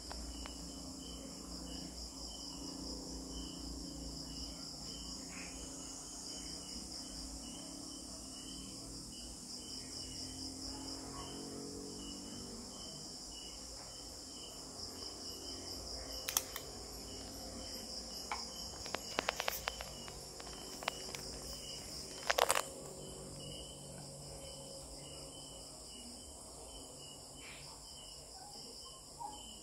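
Steady, high-pitched chirping of insects, with a regular pulsing chirp repeating throughout, over a faint low hum. A few sharp clicks and taps fall around the middle.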